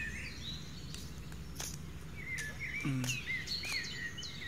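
Small birds chirping: a run of short, looping chirps repeated several times, with higher falling notes, over a steady low background hum. A few light clicks come through as well.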